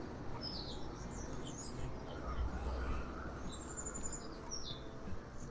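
Birds chirping in scattered short, high calls, one held briefly as a thin whistle partway through, over a faint low rumble.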